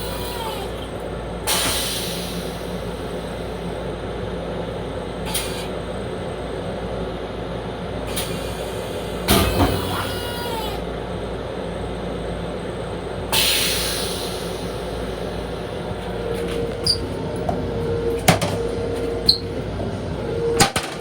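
Steady running noise inside a Long Island Rail Road M7 railcar, with sudden hisses of air: one about a second and a half in and a longer one that fades away about thirteen seconds in. There are clunks around nine seconds in, scattered clicks near the end, and a steady hum that comes in about sixteen seconds in.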